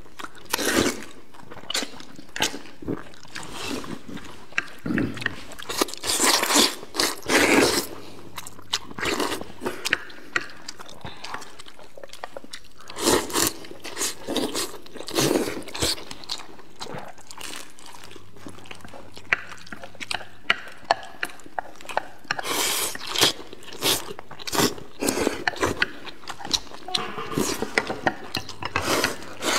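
Two people eating wide flat noodles: slurping them up and chewing, in irregular bursts with a few longer slurps.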